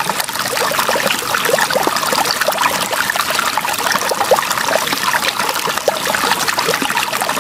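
A thin stream of water pouring from a glass tube into a small plastic tub that already holds water, trickling and splashing steadily.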